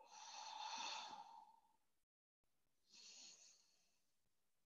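A woman breathing out audibly and faintly: one long, sighing exhale, then a shorter, quieter breath about three seconds in.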